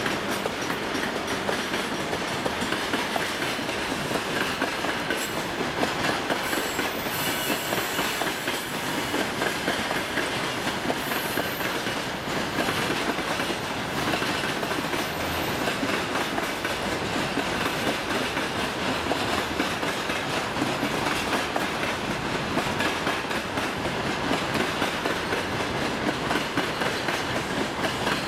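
Freight train of loaded hopper wagons rolling steadily past: a continuous rumble of wheels on rails, thick with rapid clattering clicks.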